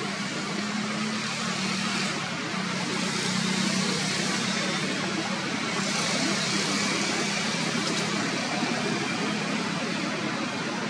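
Steady background noise with a low, even hum, and a high hiss that swells twice, about two and six seconds in.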